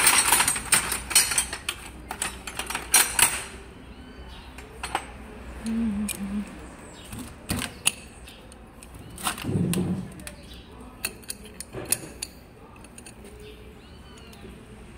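Steel hand tools clinking and clattering in a metal toolbox as they are rummaged through, a dense run of sharp clanks over the first few seconds. After that come scattered lighter clicks of a socket wrench being fitted to a bolt on a hydraulic pump housing.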